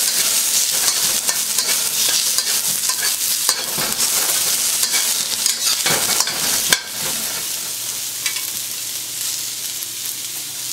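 Sliced ginger, onion and celery sizzling in hot oil in a wok, stirred and scraped with a metal wok ladle for about the first seven seconds. After a sharp click the stirring stops and only the steady sizzle goes on, a little quieter.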